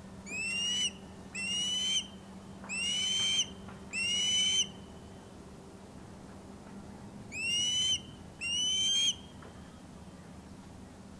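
Osprey calling: six loud whistled calls, each sliding up in pitch and levelling off, under a second long. Four come in quick succession, then two more after a pause. A faint steady low hum runs underneath.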